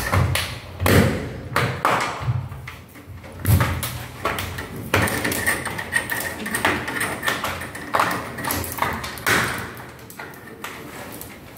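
Plastic diffuser cover being pressed by hand into a ceiling-mounted aluminium LED profile, snapping in with irregular clicks and knocks about once a second that thin out near the end.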